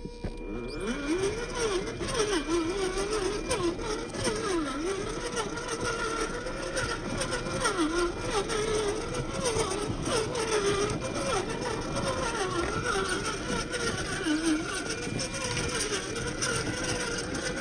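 The Reely Free Men 1:10 RC rock crawler's electric motor and gear drivetrain whining, the pitch rising and falling over and over as the throttle is worked. Its tyres and chassis click and crunch over loose rocks.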